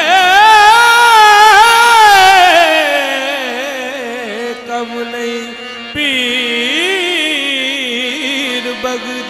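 Qawwali singing with harmonium: a long held vocal note with heavy vibrato that slides down over about three seconds, and a second drawn-out sung phrase beginning about six seconds in, over steady held harmonium notes.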